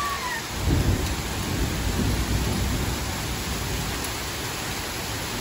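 A thunderclap rumbling about a second in, loudest at first and slowly dying away, over the steady hiss of a heavy downpour in a thunderstorm.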